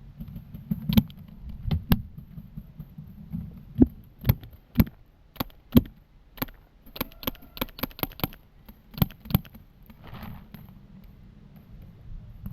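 Paintball markers firing: irregular single shots, then a quick string of about eight shots around seven seconds in and two more shortly after.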